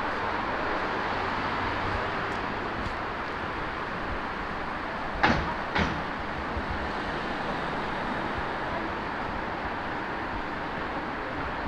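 Steady city-street background noise, with two sharp knocks about half a second apart a little past the middle.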